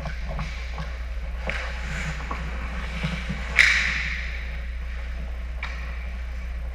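Ice hockey play heard from the goal: skate blades scraping the ice and light clacks of sticks and puck. A little over three seconds in comes one sharp crack with a hissing scrape that fades over about a second.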